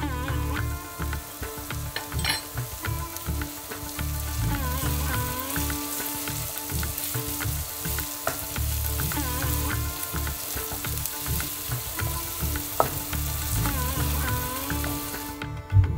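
Chopped onion with cumin seeds and herbs sizzling in hot oil in a pan as it is stirred. The sizzle stops sharply near the end.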